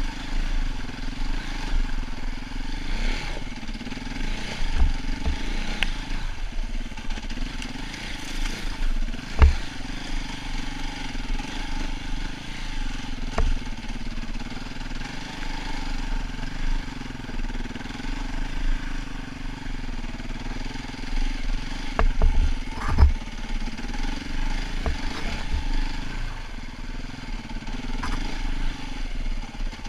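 Dirt bike engine running at fairly steady revs while riding over a rocky trail, with scattered sharp knocks and clatter from the bike hitting stones; the loudest knocks come about nine and a half seconds in and around twenty-three seconds in.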